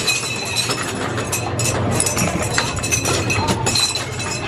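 Rings landing on and bouncing off rows of glass bottles in a ring toss game, a rapid, irregular clatter of clicks and clinks with some brief glassy ringing.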